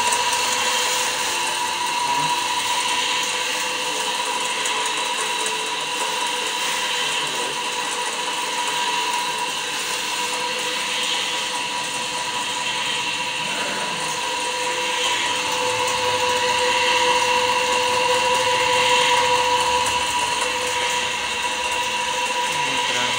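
Electric motor of a pulley-driven donkey water pump running steadily, with a constant whine over a mechanical hiss.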